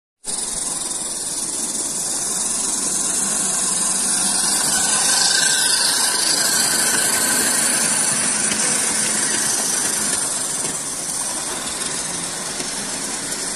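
Model train running on its track: the electric motor and wheels make a steady whirring hiss, louder in the middle as the locomotive and wagons pass close by, easing off near the end.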